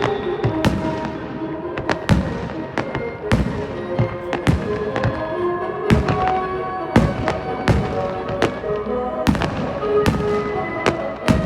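Aerial fireworks shells bursting in a rapid, irregular series of sharp bangs, about one or two a second, over music with held melodic notes.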